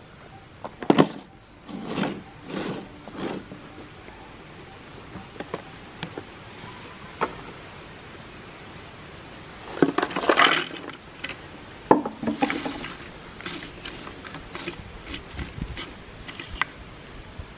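Hands handling a plastic food tub and putting fried pastry pieces onto a plate: scattered knocks, rustles and clatters, with a longer rattle about ten seconds in and a run of small clicks near the end as the pieces are set out one by one.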